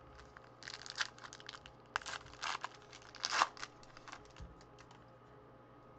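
Foil wrapper of a trading-card pack being torn open and crinkled: a series of short crackling tears, the loudest about three and a half seconds in, then it goes quiet.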